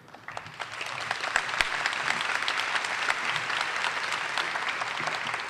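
Audience applauding, a dense clapping that swells up in the first second and then holds steady.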